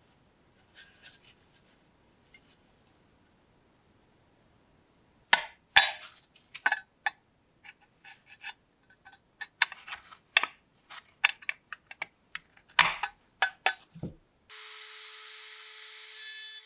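Pliers clicking and scraping against the rusty threaded metal socket of the lantern body in a quick irregular run of sharp metallic clinks. Near the end a small handheld rotary tool starts and runs with a steady whine.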